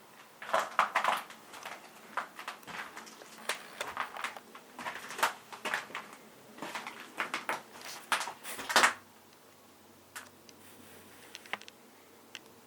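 Irregular knocking and clattering, dense for about the first nine seconds, then a few scattered faint clicks.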